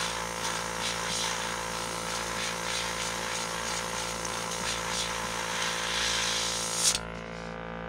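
Airbrush spraying acrylic paint with a steady hiss of air, over the constant hum of its air compressor. The spray cuts off suddenly about seven seconds in, leaving only the compressor hum.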